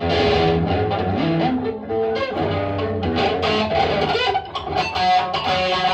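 Loud live music from a noise/performance-art set, cutting in abruptly, with quickly shifting pitched notes over a steady low end.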